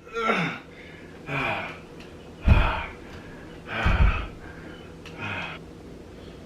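A man's exaggerated grunts and gasping breaths as he strains through weightlifting reps, five in all, about one every second and a quarter; the middle two are the loudest and deepest.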